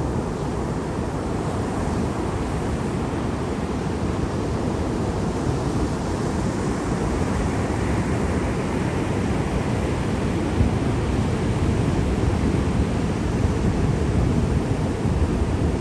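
Sea waves breaking and washing on the shore in a steady, low rush of surf that swells and eases slowly, with wind on the microphone.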